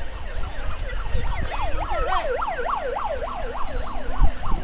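Electronic siren on a fast yelp, its pitch sweeping up and down about four times a second; it grows louder about a second in and fades near the end, over a low rumble.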